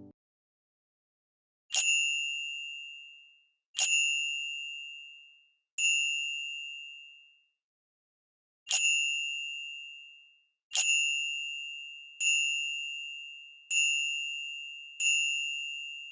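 A bright bell-like ding sound effect, the quiz's wink sound, struck eight times, each ringing out and fading over about a second and a half. The first strikes come about two seconds apart; after a longer pause they come faster near the end.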